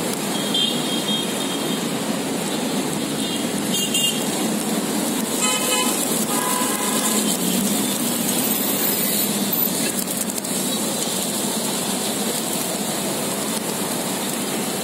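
Steady city traffic noise with vehicle horns tooting a few times in the first half, mixed with the flutter of a large flock of pigeons' wings as they take off and land.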